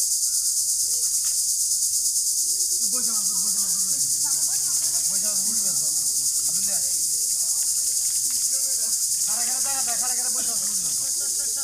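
Loud, steady, high-pitched insect chorus with a fast, even pulsing.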